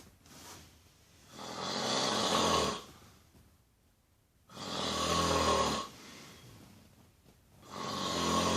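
Loud snoring: three long snores about three seconds apart, each lasting just over a second, with fainter breathing sounds between them.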